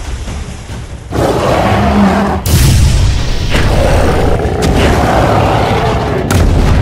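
Cartoon battle sound effects of energy beams and blasts: a boom comes in about a second in, jumps suddenly louder a moment later, and carries on as a loud, dense rush of noise.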